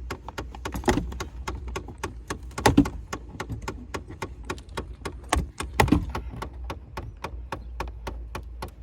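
Chevy Impala driver-side HVAC blend door actuator clicking behind the dashboard, a steady run of several sharp clicks a second: the noise of the failing actuator. A few louder plastic thuds come from dash trim being pried loose.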